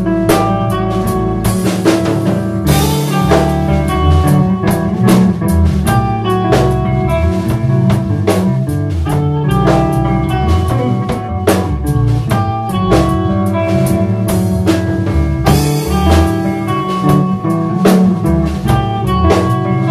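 Electric guitars and a drum kit playing a song together in a band rehearsal, with steady drum and cymbal hits under the guitar lines.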